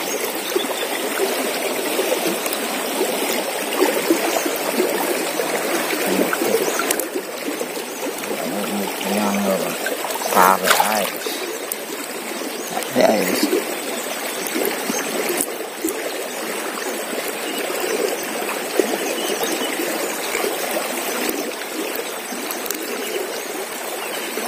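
A rain-swollen river running fast, a steady rush of water throughout, with a couple of short louder sounds about ten and thirteen seconds in.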